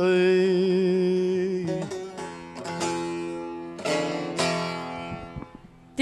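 Bağlama (long-necked Turkish saz) closing out a folk song: a long held note, then a few plucked strokes that ring and fade away.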